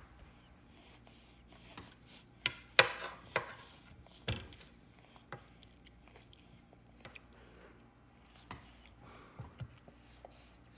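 A toddler's metal spoon knocking and scraping on a wooden high-chair tray: irregular taps, with a cluster of louder knocks about three seconds in and lighter taps after.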